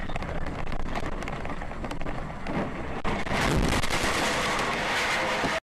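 Dashcam recording of a vehicle driving on a wet road: a steady rumble of engine and tyre noise with a hiss of tyres on the wet surface. It grows louder about three seconds in, then cuts off abruptly near the end.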